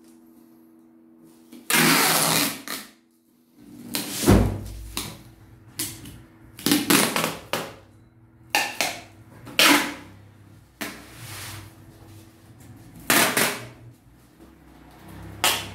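Clear packing tape pulled off its roll in a series of short noisy strips and pressed onto a cardboard box, with cardboard handling between pulls and a dull thump about four seconds in as the box is set down on its side.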